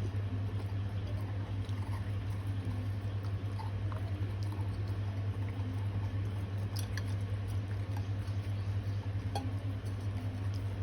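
A retriever licking and chewing ice cream: small wet smacks and clicks, a few sharper ticks in the second half, over a steady low hum.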